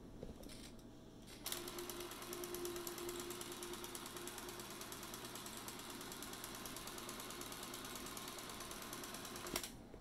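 Canon DS-8 Super 8 film camera running with its film door open: its drive and film transport make a steady, fast, even mechanical whirring clatter. It starts about a second and a half in and stops abruptly with a click near the end.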